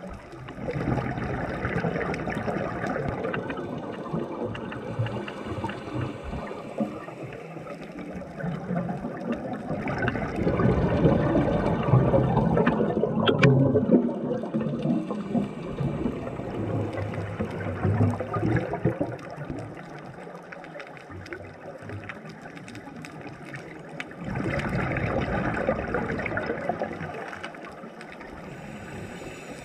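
Scuba breathing heard through an underwater camera: bursts of exhaled bubbles gurgling and rushing past for a few seconds at a time, several times, with quieter stretches of inhalation between them.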